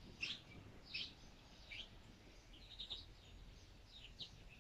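Faint bird chirps: short, high, downward-sweeping calls repeating roughly once a second over a quiet background.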